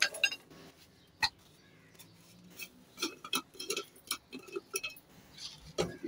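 Light knocks and clinks of a mixer grinder jar against stainless steel bowls as ground powder is tipped and tapped out. There is a single sharp knock about a second in, then a run of quicker taps from midway, ending in a louder clink.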